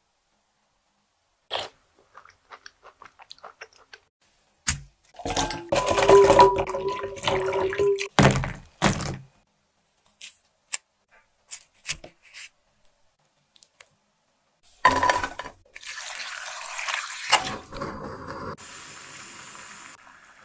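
A run of close-up kitchen food-prep sounds: scattered clicks and taps, a loud stretch of clinking and liquid sounds around the middle, then near the end a steady hiss of hawthorn berries simmering in a pot of water.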